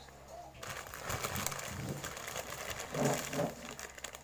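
Plastic instant-noodle packets crinkling and rustling as they are picked up and stacked on a table, with a brief low murmur about three seconds in.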